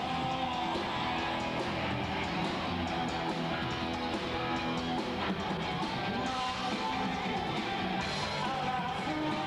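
Rock band playing live, with strummed guitars carrying the music.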